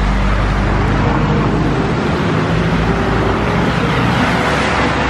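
Steady road traffic on wet streets: tyre hiss with a deep engine rumble underneath.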